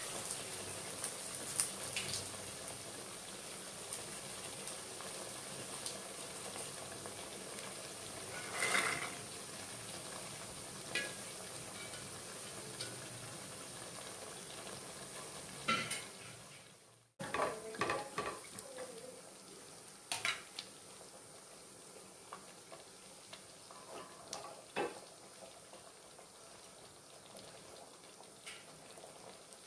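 Masala gravy with green peas sizzling and simmering in an aluminium pressure cooker pot, with a steady hiss. A spoon stirs and knocks against the metal pot a few times, and the sound drops out briefly past the halfway mark.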